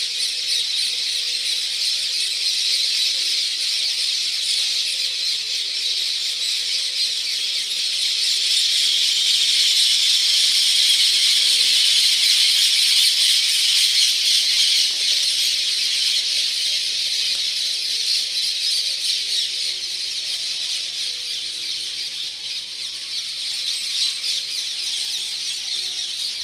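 A large flock of parakeets screeching all together, a dense, unbroken chorus of shrill calls. It swells louder about a third of the way in and eases off toward the end.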